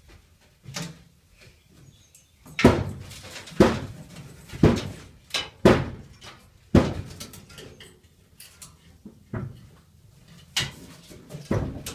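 A series of hollow metal knocks and bangs, about ten, irregularly spaced, each with a short echo inside a truck's panelled box body: the truck's removed steel radiator grille knocking against the box wall as it is tied up with string.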